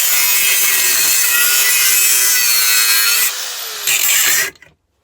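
Angle grinder cutting into a car compressor's metal casing: a harsh, steady grinding with a wavering motor whine. It eases for a moment about three seconds in, bites again, then stops suddenly near the end.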